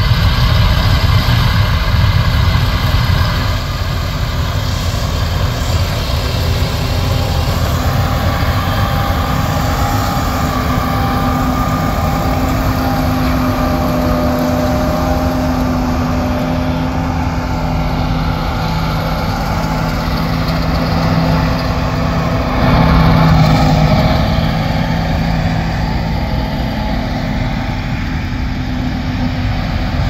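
Combine harvester running steadily in a cornfield, a continuous diesel engine drone with a machine whine over it in the middle stretch, and a brief swell in loudness about two-thirds of the way through.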